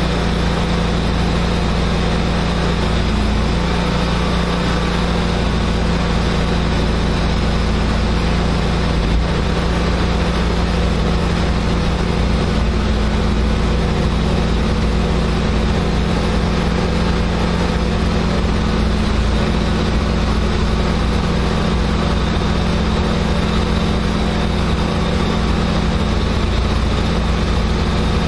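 Gas engine of a hot-water pressure washer running steadily at a constant speed, with the hiss of high-pressure water spray.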